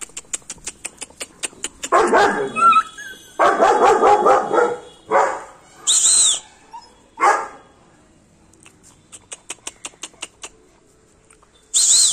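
A litter of German shepherd puppies barking and yelping in several loud bursts. Quick runs of clicking come at the start and again later, and a short high-pitched squeal sounds twice, about halfway through and near the end.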